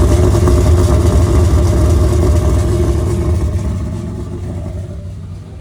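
Holden VN Calais engine running steadily, fading away over the last two seconds.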